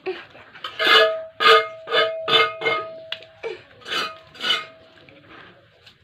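Music with a run of short plucked-string notes about half a second apart over a held tone.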